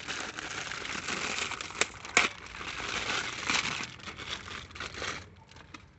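Packaging crinkling and rustling, with a couple of sharp clicks, stopping about five seconds in. This is typical of new replacement door handles being unwrapped.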